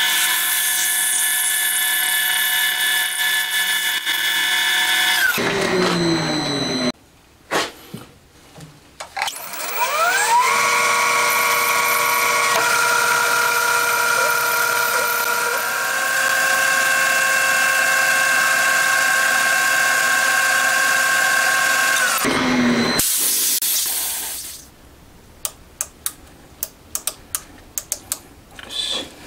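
Metal lathe machining a valve-guide blank: its spindle gearing whines steadily while the part is drilled and then bored. The whine winds down about five seconds in, and a few clicks follow. It starts up again with a rising whine about ten seconds in, steps in pitch twice, and winds down again a little after twenty seconds. Light clicks and taps of tools being handled on the lathe come near the end.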